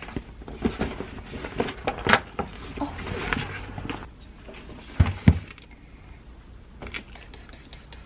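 Rustling and handling of a nonwoven shopping tote bag as things are packed into it, with scattered light clicks and two dull thumps close together about five seconds in.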